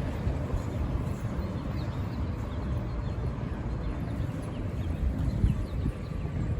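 City street ambience: a steady low rumble of traffic, with faint short high chirps here and there.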